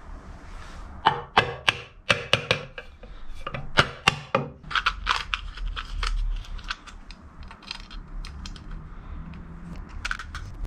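A quick run of sharp metallic clinks and knocks, thickest in the first half and thinning to lighter ticks, as metal parts of a Bridgeport milling machine's head are handled and seated against its aluminium cover plate during reassembly.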